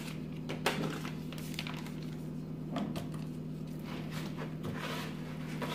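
Soft rustling and scraping of a crumbly flour, oil and egg mixture being worked by hand in a plastic bowl, with a few light knocks, over a steady low hum.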